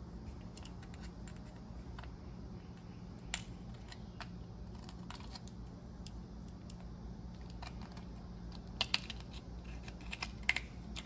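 Faint scattered clicks and light scrapes of a hand deburring blade working the inside of a tapped hole in a metal rod, and of the small metal parts being handled, with a few sharper clicks near the end, over a steady low hum.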